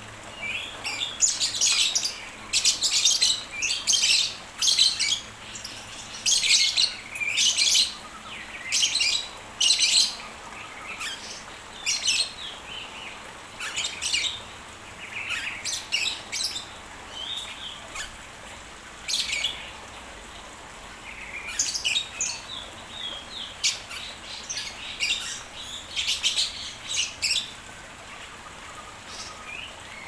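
Captive birds chirping and calling in short, loud bursts, rapid and close together for the first ten seconds or so, then coming more sparsely.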